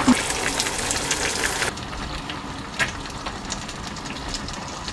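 Eggs frying in oil in a frying pan: a steady sizzle with scattered crackling pops. It drops to a quieter sizzle a little under two seconds in.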